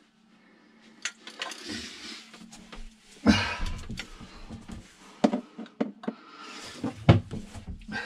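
Clicks and knocks of a hand caulking gun being squeezed and handled while sealant is run around a through-hull transducer fitting, with rustling of gloves and clothing. The loudest knocks come about three seconds in and again about seven seconds in.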